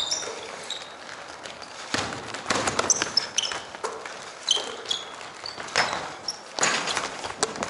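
A basketball bouncing on a hardwood gym floor, with repeated sharp thuds, and sneakers giving short high squeaks as players cut and stop, echoing in a large hall.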